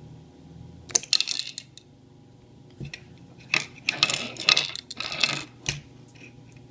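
Small hard objects clinking and rattling against a hard work surface, in a short cluster about a second in and a longer one from about three and a half seconds to nearly six.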